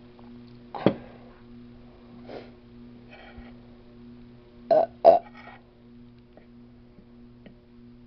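A woman burping after swigging soda: one loud burp about a second in and two more in quick succession about five seconds in, over a steady low hum.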